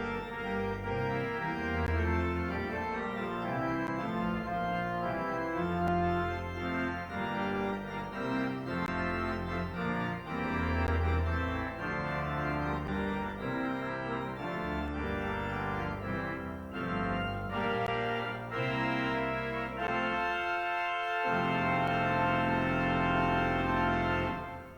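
Organ playing slow, sustained chords that change every second or two; near the end the bass notes briefly drop out, then a final chord is held and dies away.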